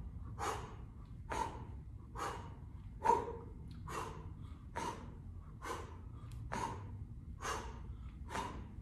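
A person exercising and breathing hard: a sharp, hissy exhale roughly once a second, about ten in a row, keeping time with squat-and-punch reps.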